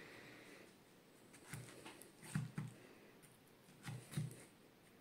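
Kitchen knife cutting down through a pineapple ring onto a wooden cutting board, cutting out the core. It gives a few soft knocks: one, then a pair near the middle, and another pair near the end.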